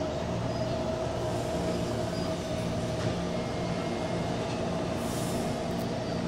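Taipei MRT Bannan line train pulling into the station and slowing to a stop, a steady hum with several held tones. A brief high hiss comes about five seconds in.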